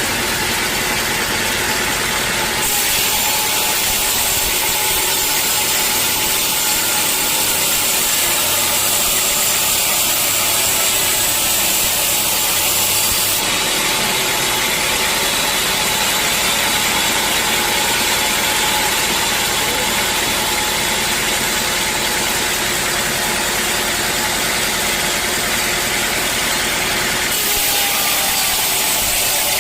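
Sawmill machinery running steadily, its motor droning, with a harsher hiss from about three to thirteen seconds in and again near the end as the saw cuts wood.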